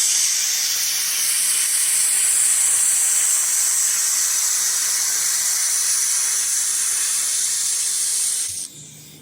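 Steady, loud hiss from a handheld fiber laser welding gun in use, with shielding gas blowing through its nozzle during the weld. It cuts off suddenly near the end.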